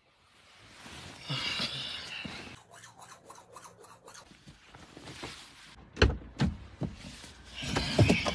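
Toothbrush scrubbing against teeth in quick strokes, about five a second, after some rubbing. A few sharp knocks and thumps follow near the end.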